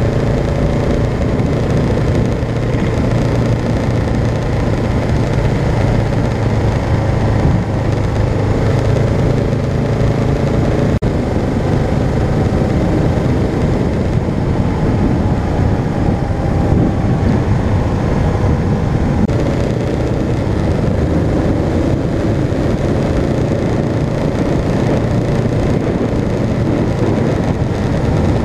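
Kawasaki KLR650's single-cylinder four-stroke engine running at a steady pace while riding, with wind and road noise on the microphone.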